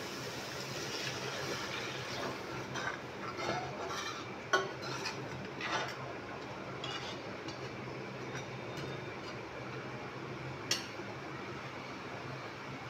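Steel spoon scraping and clinking against a steel kadhai while water is stirred into fried masala paste, with scattered sharp clinks, the loudest about four and a half seconds in and another near ten seconds. A steady low hum runs underneath.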